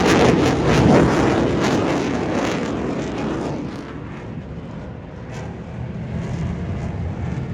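Jet aircraft passing in afterburner: a loud crackling rumble that fades away after about three and a half seconds.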